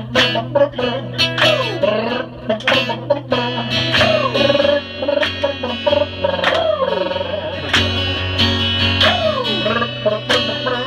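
Live acoustic guitar strumming in an instrumental break of a song, over a steady low note. A melody line slides down in pitch again and again, about every second or so.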